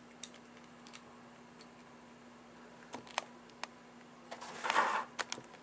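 Light clicks and handling noise as fingers twist at the handle end of a toy illuminating wand to open its battery compartment, with a short scraping rustle about four and a half seconds in.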